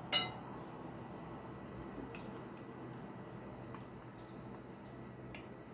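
A sharp clink of glass just after the start, then soft scattered taps and scraping as thick sour cream is scraped out of a small glass bowl with a silicone spatula into a glass mixing bowl.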